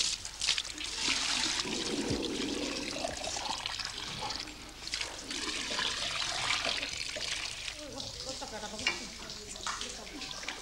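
Water splashing and rushing as it is poured from a bucket into a brass water pot, with voices talking in the background.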